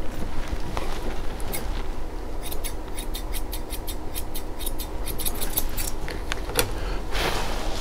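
Grooming shears snipping a Bichon Frise's coat: a run of crisp snips, about four or five a second, through the middle, with a few single snips before it. Near the end comes a brief rush of noise, over a steady low hum.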